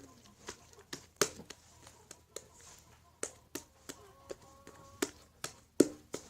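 Shaving-foam slime being stretched open and folded over in the hands, giving off a dozen or so irregular sharp clicks and pops.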